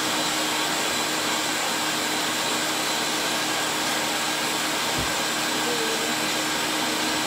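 Kitchen range hood exhaust fan running with a steady rushing whir and a faint motor hum. A soft low thump comes about five seconds in.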